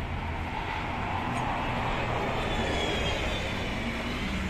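Street traffic noise: a passing vehicle swells to its loudest about two seconds in and then fades, over a steady low hum of traffic.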